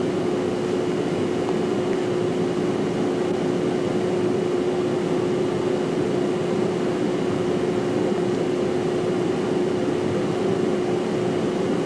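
Steady hum with an even hiss, unchanging in level, with no separate events.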